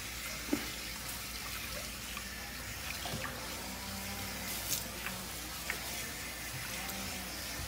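Pull-down kitchen faucet sprayer running, water spraying onto a wet dog's coat and splashing into a stainless steel sink as shampoo is rinsed out. A steady, even hiss.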